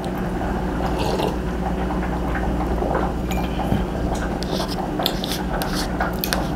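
A metal spoon clicking and scraping in a small cup, a dozen or so short irregular clinks, over a steady low hum.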